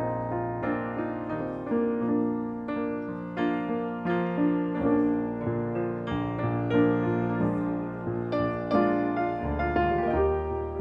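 Piano playing a slow, chordal passage alone, with a melody of struck notes over held bass notes and no singing.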